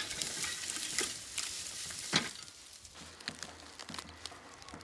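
Dry grass and weeds rustling and crackling as they are handled, dense for the first two seconds. A sharp knock comes a little after two seconds in, followed by quieter, scattered crackles.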